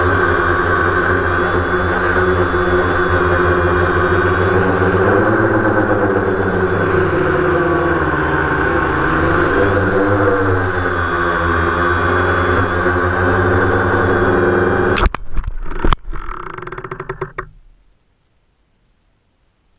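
DJI Phantom quadcopter's motors and propellers buzzing steadily, heard close up from the camera on board, their pitch swaying up and down as it manoeuvres. About fifteen seconds in, two sharp knocks come as it hits the ground, the sound turns choppy, and the motors wind down and cut out within about three seconds.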